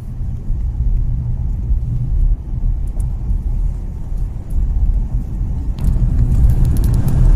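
Steady low rumble of a car driving, heard from inside the cabin, with engine and tyre noise and a few faint ticks about six seconds in.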